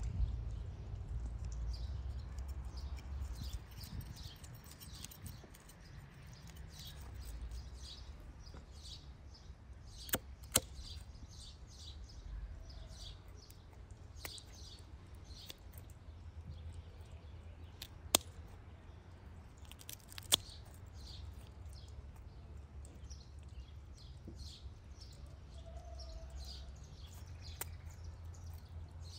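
Small birds chirping over and over above a low steady rumble. A few sharp snips of kitchen scissors cutting a small raw fish come through: two close together about a third of the way in, and two more a little past halfway.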